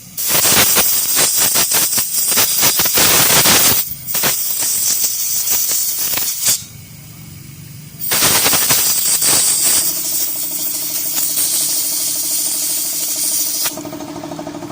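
Harsh, scratchy scrubbing noise in three loud bouts as the rusted contacts of a Hyundai Starex starter relay are cleaned, the corrosion behind its no-start fault; a low steady hum comes in late.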